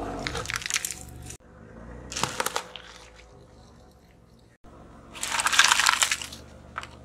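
A car tyre rolling over and crushing objects in three separate bouts. Wrapped sweets crackle at the start, there is a wet crunch about two seconds in as a pomegranate splits, and the loudest crunching crackle comes about five to six seconds in as a foil-wrapped item is flattened.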